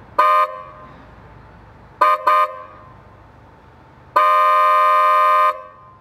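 PIAA Sports Horn, a dual-tone electric car horn pitched at 500 and 600 Hz, fitted to a Toyota GR Yaris, sounding one short beep, then two quick beeps about two seconds in, then a long blast of over a second near the end.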